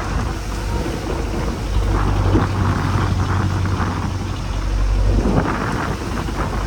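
A boat engine running with a steady low hum under heavy wind noise on the microphone and the rush of rough sea, the noise surging about two seconds in and again about five seconds in.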